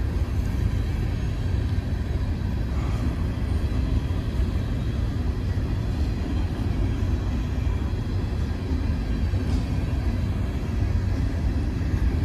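Empty coal hopper cars of a freight train rolling past, a steady low rumble of steel wheels on the rails.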